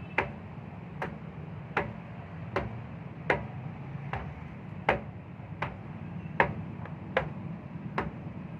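Sharp ticks, evenly spaced about once every three-quarters of a second, over a steady low hum.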